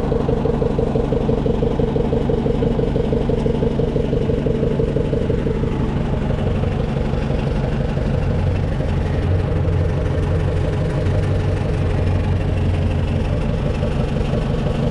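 New Holland L555 skid steer engine running steadily. About six seconds in, a higher mid-pitched note fades and a deep low hum grows stronger as the engine note changes.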